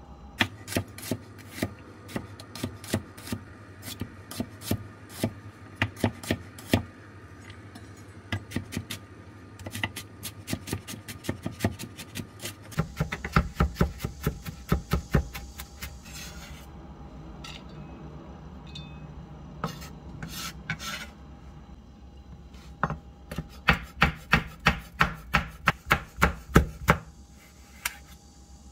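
Chef's knife chopping on a bamboo cutting board: quick, uneven strikes mincing garlic cloves, a short lull, then a steady run of about three strokes a second slicing a red chili near the end.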